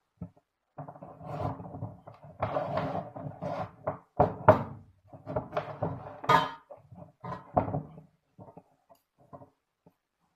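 Irregular knocks and clunks of metal workshop parts being handled and set in place, with two sharp knocks about four and six seconds in.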